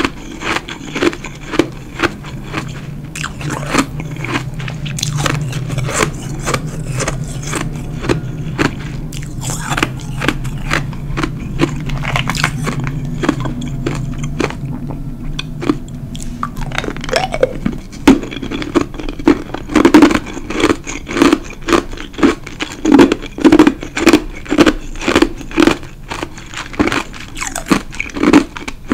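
Close-miked chewing and crunching of ice in the mouth: a run of crisp crunches that grows louder and more regular in the last third, at about two bites a second.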